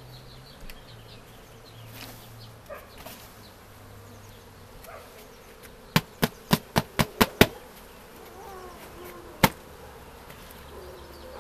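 Honey bees buzzing steadily around an open observation hive. About six seconds in come seven sharp knocks in quick succession, getting closer together, and a single knock a couple of seconds later; these knocks are the loudest sounds.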